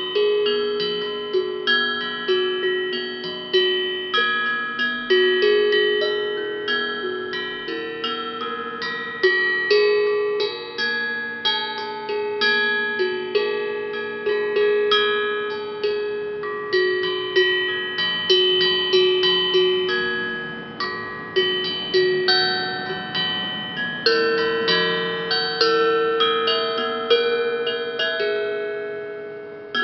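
Hamon, a tuned iron percussion instrument, played as a melody: struck metallic notes ringing and overlapping at about two or three strikes a second, fading away near the end.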